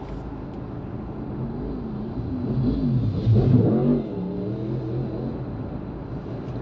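Vehicle noise heard from inside a van's cab in stopped traffic: a steady low engine rumble, with an engine rising and falling in pitch as it revs, loudest about three to four seconds in.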